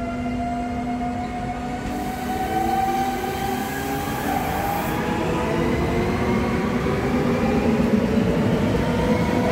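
SŽ class 312 (Siemens Desiro) diesel multiple unit pulling away and passing close by, its engine and transmission whine rising steadily in pitch as it accelerates. A hiss sounds from about two to five seconds in.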